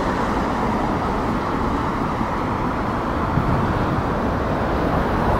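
Steady city road-traffic noise: vehicle engines with a low rumble and tyre noise on a wet street, with no siren.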